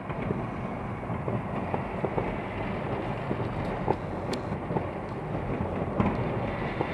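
Many fireworks going off across a city at once, merging into a continuous rumbling crackle, with a few sharper single bangs now and then.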